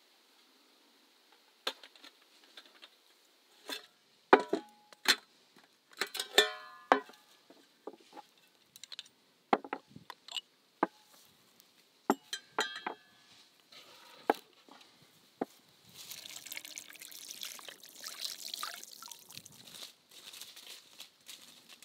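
Tableware being set down on a small cloth-covered table: a string of sharp clinks and knocks from enamel plates, forks and drinking glasses, a few of them ringing briefly. In the last few seconds, rustling footsteps through dry grass and leaves.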